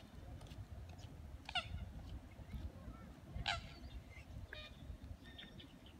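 Waterbirds calling on a lake: short calls, two louder ones about a second and a half and three and a half seconds in, and fainter ones near the end, over a low rumble.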